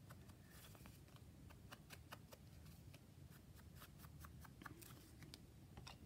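Near silence with faint, irregular light taps and paper rustles: a makeup blending sponge being dabbed on an ink pad and onto paper tags as they are handled.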